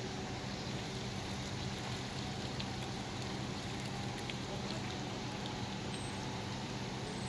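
River cruise ship's engines running with a steady low hum under an even rushing hiss as the ship comes alongside the pier to moor.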